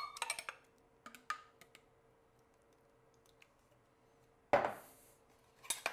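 Salsa poured from a glass jar into a metal measuring cup, with small clicks of the cup against the jar, then a louder knock and scrape about four and a half seconds in as the cup is tipped out over corn tortillas in a glass baking dish, followed by a few light clicks.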